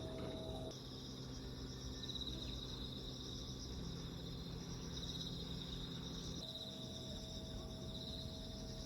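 Insects chirring in a steady high-pitched drone that swells every few seconds, over a low steady hum.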